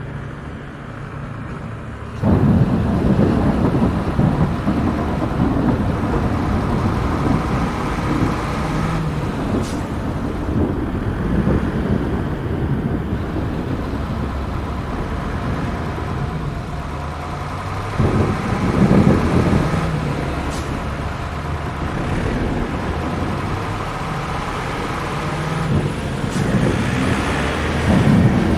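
Heavy diesel semi-truck engine running with a deep, steady rumble that starts abruptly about two seconds in and swells louder twice, once around the middle and again near the end.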